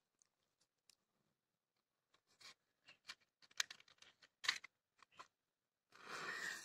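Matches being struck to light a fire of dry palm leaves and coconut husk: faint scattered clicks and scratches, then a short scraping hiss about six seconds in as a match is struck and flares.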